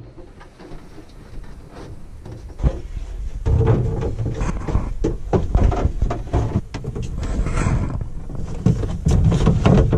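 Plastic water pipes and push-fit fittings being handled close up: frequent knocks, clicks and rubbing. It gets much louder from about three and a half seconds in, as the pipes are worked into place under the sink.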